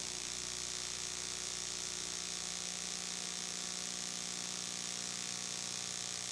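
Steady hiss and low electrical hum from an old off-air recording, with no programme sound over it.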